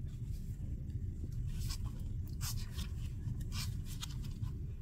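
Tarot cards sliding and rubbing against one another as a deck is fanned through by hand: several soft papery swishes over a low steady background hum.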